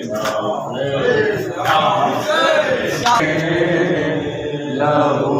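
A group of men chanting a Muharram nauha, an Urdu lament, together in a steady rhythm. Sharp slaps about every second and a half keep the beat, the chest-beating of matam.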